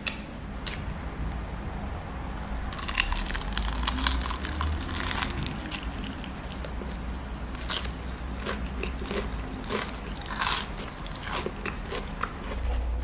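Crispy fried chicken being bitten and chewed close to the microphone: a quick run of crunches starting about three seconds in, over a steady low hum.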